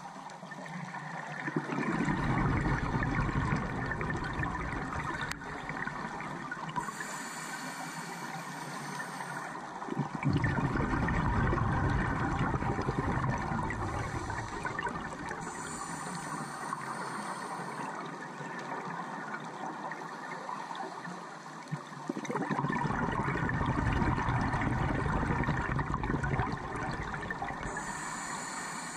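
Scuba diver breathing through a regulator underwater, heard through the camera's waterproof housing: three long, bubbly exhalations about ten seconds apart, with a thinner hiss between them.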